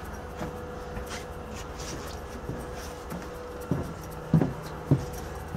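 Footsteps on a boat's deck: a few dull thuds, about half a second apart, in the second half, over a faint steady hum.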